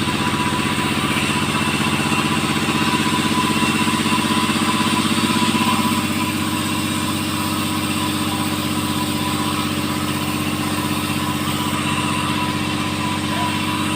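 Type 5800 two-stroke mini chainsaw with a 22-inch bar running steadily, a little louder for the first six seconds or so.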